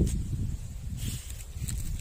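A dog rolling in a shallow muddy puddle, sloshing and squelching through wet mud, over an uneven low rumble, with a brief splash-like hiss about a second in.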